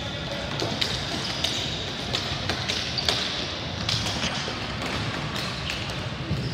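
Ball hockey play: irregular sharp knocks of sticks and the ball on the court and boards, over the steady background noise of the game.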